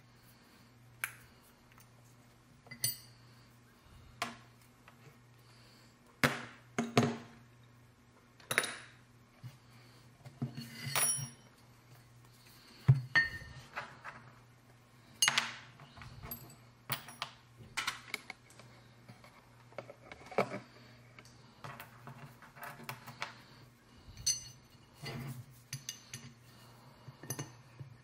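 Small metal parts and screws clinking and knocking on a workbench while a knife sharpener is put together with an Allen key: scattered, irregular clicks and clinks, a few of them ringing, over a faint steady hum.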